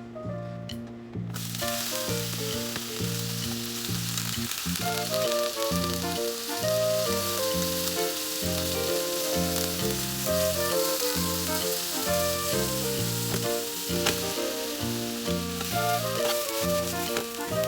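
Food sizzling as it fries in a pan, with the sizzle starting about a second in, under background music with a steady bass line.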